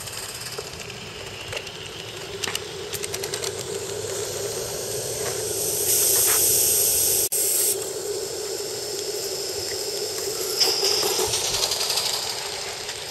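Live-steam model of a Bavarian S 2/6 locomotive running, its steam hissing with light clicks. The hiss comes loudest for about two seconds around six seconds in as the engine passes close, and rises again near the end.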